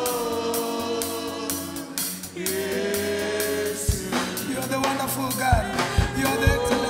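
Gospel praise-and-worship singing: a group of voices holding long notes over instrumental backing, with sharp percussive hits coming in after about four seconds.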